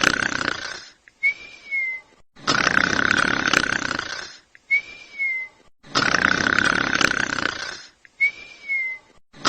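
Sleeping dog snoring: a long, rough snore, then a small click and a short, high nasal whistle, repeating evenly about every three and a half seconds.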